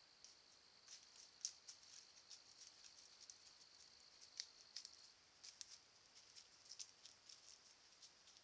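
Faint, irregular ticks and light crackles of deer hooves stepping through dry leaf litter and fallen palmetto fronds, over a thin, steady high-pitched whine that stops about five seconds in.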